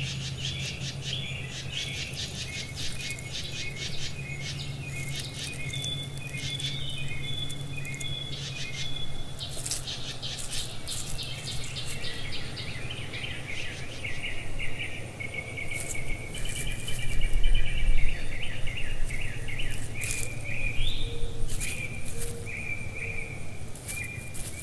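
Small songbirds singing and chirping in quick repeated trills, with scattered short clicks and a steady low hum underneath.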